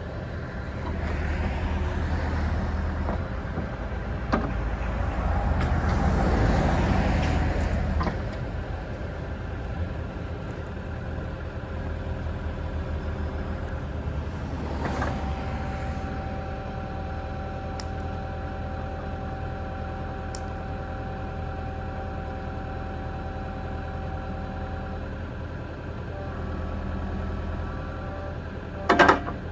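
Diesel engine of a 1996 Akerman EW150 wheeled excavator running. It is louder during the first several seconds, then settles to a steady run with a thin steady whine through the middle. A short loud noise comes near the end.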